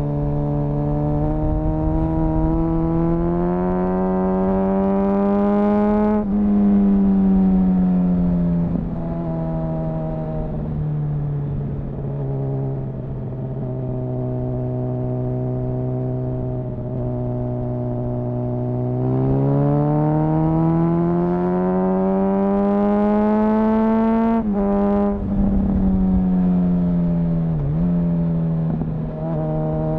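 2004 Honda CBR1000RR Fireblade's inline-four engine under hard acceleration: the pitch climbs, drops sharply about six seconds in, holds steady for a while, climbs again, then falls twice in quick succession near 25 seconds in before rising once more, with wind rush underneath.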